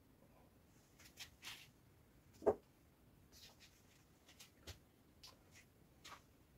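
Faint scattered clicks and rustles of whiteboard markers being handled, with one sharper click about two and a half seconds in.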